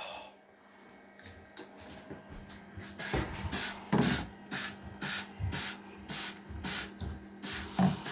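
Cleaning spray squirted over and over in short hissing bursts, about two a second, starting about three seconds in.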